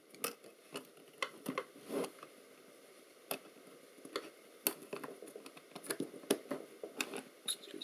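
Irregular small clicks and scrapes of a screwdriver tip working at the plastic connector latches and edge of a circuit board.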